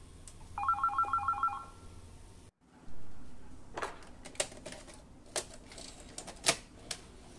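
A short electronic warbling tone, two pitches switching rapidly, lasting about a second. After a brief silence it is followed by a series of sharp clicks and taps.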